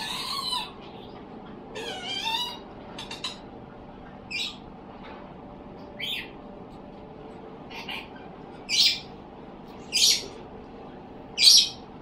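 A bird giving short, high, squeaky calls every second or so, with one warbling, wavering call about two seconds in. The last three calls, about a second and a half apart, are the loudest.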